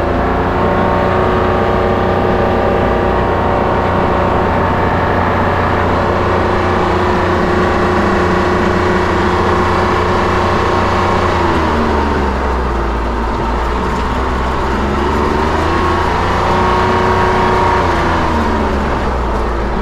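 Engine of a Kawasaki Mule utility vehicle running steadily while under way. Its pitch dips and climbs again about two-thirds of the way through, and the sound cuts off abruptly at the end.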